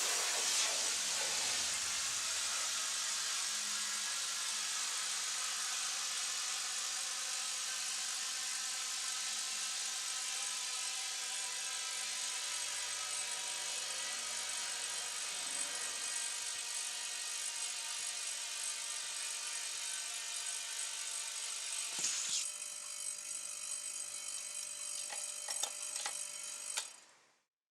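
Compressed air hissing steadily out of a homemade air compressor's tank, with a faint high whistle; a few clicks come near the end and then the hiss cuts off suddenly.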